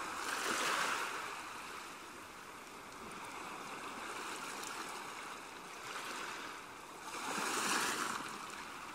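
Sea waves washing in a steady hiss, swelling louder about a second in and again near the end.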